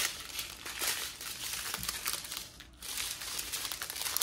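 Plastic crinkling as a strip of small sealed bags of round diamond painting drills is handled and flipped through. There is a short lull about two and a half seconds in.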